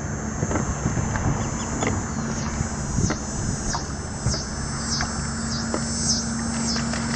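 Steady outdoor background hiss with a low hum and scattered light clicks. From about two seconds in, a high chirping call repeats about twice a second.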